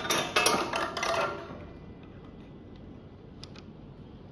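Small hard parts of an adjustable handlebar stem clicking and clattering as the curved washer and bolt are handled and fitted by hand, a quick run of clicks in the first second and a half, then only a couple of faint ticks.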